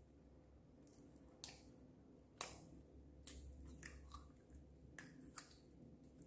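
Soft, sticky clicks and pops of slime being squeezed by hand out of a plastic tub, a handful of sharp pops over faint squishing, the loudest about two and a half seconds in.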